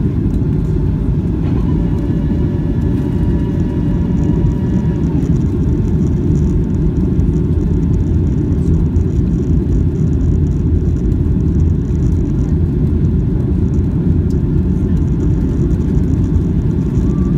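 Steady, loud low rumble of jet engines and airflow inside the cabin of a Boeing 757-200 descending on approach. A faint whine joins about a second and a half in and fades a few seconds later.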